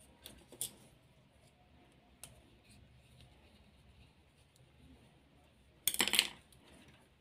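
Small clicks of a circuit board and screwdriver being handled and fitted inside a battery-charger case, with a brief louder clatter about six seconds in.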